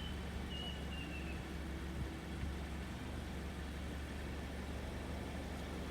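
Steady low drone of a car driving, engine and road noise running evenly.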